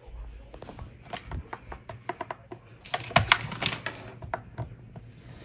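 A run of irregular sharp clicks, clustered most densely around the middle, over a faint low hum.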